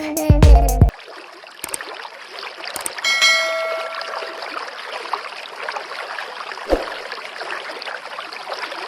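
Music with a beat cuts off about a second in. A steady rushing hiss like running water follows, and a single bell-like ding sounds about three seconds in and rings out over a second or so.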